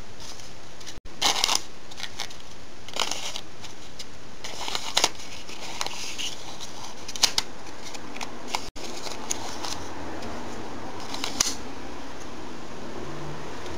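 120 roll film being fed by hand into a Hewes steel developing reel: scattered short, scratchy rustles as the film slides along the steel spiral, over a steady hiss.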